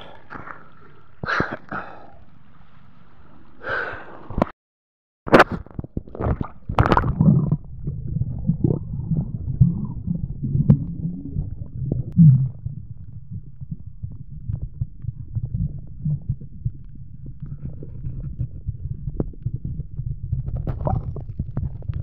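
Short splashy noises at the water's surface for the first few seconds. After a brief gap, a steady muffled low rumble with scattered crackles and gurgles, picked up by the camera under water.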